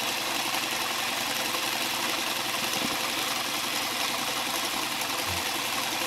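Homemade Newman motor running steadily on 12 volts, its coils switched by a transistor circuit instead of a commutator. It gives a fast, even whir and runs smoothly.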